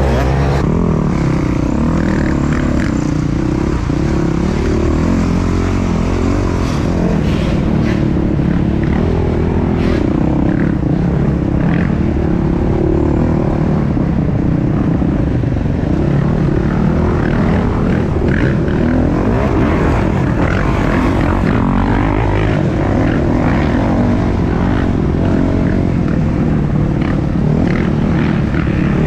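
250cc off-road racing dirt bike engine running hard under load, heard close up from a camera on the bike or rider, its pitch wavering up and down as the throttle is worked, with a few brief knocks.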